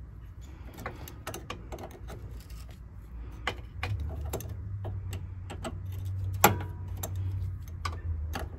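Irregular metallic clicks and clinks of a 17 mm wrench and hands working a power steering line fitting loose on a steering rack. A low steady hum sits underneath, louder from about four seconds in.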